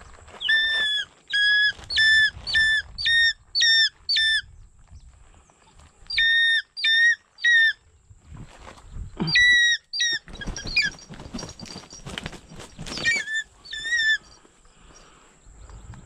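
Changeable hawk-eagle calling: a run of seven short, shrill, evenly spaced notes, three more after a pause, then a few more later, with scrappy rustling noise between them near the end.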